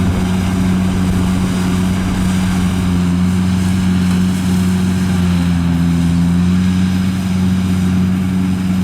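Rice harvesting machine's engine running steadily under load, its pitch sagging slightly and recovering about five to six seconds in.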